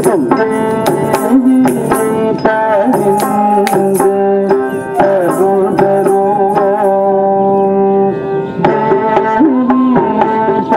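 Indian classical dance music in a raga: a long-held melody that glides between notes over a steady pattern of hand-drum strokes.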